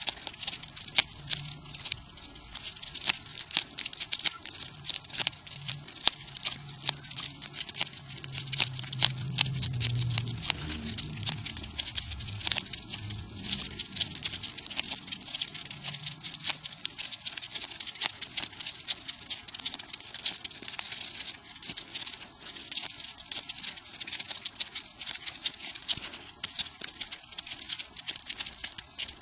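Fast, dense crinkling and crackling of folded paper units being handled and pushed into a 3D modular origami swan, sped up.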